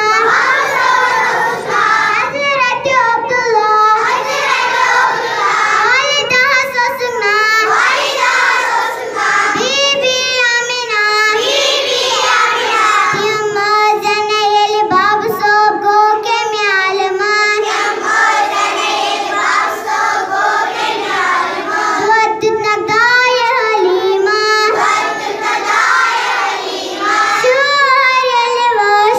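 A young child singing solo close into a handheld microphone, a melodic devotional line in phrases of a few seconds with drawn-out, wavering notes.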